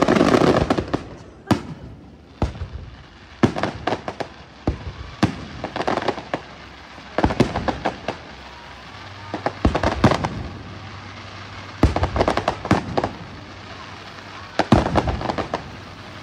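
Aerial firework shells bursting over a lake in a string of sharp bangs, a dense loud cluster in the first second and then further bangs and quick clusters every second or two.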